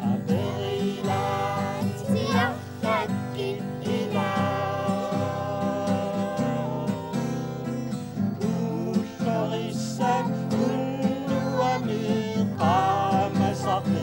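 A woman and children singing a song together, accompanied by a strummed acoustic guitar.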